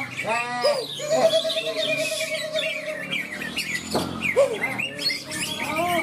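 Greater green leafbird (cucak ijo) singing, with varied whistles and chirps. Other caged songbirds sing at the same time, and a rapid trill runs from about one to three seconds in.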